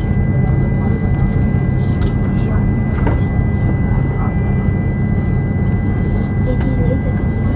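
Airbus A340-300 cabin noise on the ground: a steady low rumble with a thin steady whine above it and a few faint ticks.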